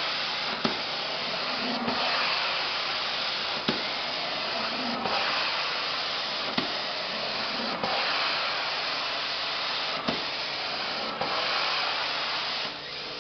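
Truck-mount carpet cleaning wand doing hot-water extraction at about 400 psi: a steady loud rush of spray and suction as it is drawn over the carpet. The rush dips briefly with a small knock every second or two, with the strokes of the wand.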